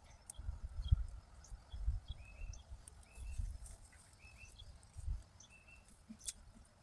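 Weeds and grass being pulled by hand from a raised bed: irregular low thuds and rustling close by. Behind it a bird repeats a short chirp about once a second.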